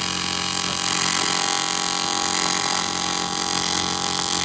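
AC TIG welding arc on cast aluminium, a steady buzz with a fixed hum, as the casting is built up with filler rod.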